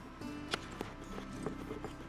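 Background music: a light plucked-string tune with a sharp tapping beat.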